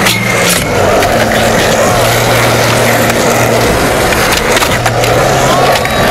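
Skateboard wheels rolling on a hard court surface, a steady rough rumble, with a few sharp board clacks, one near the start as a skater comes off a metal flat bar.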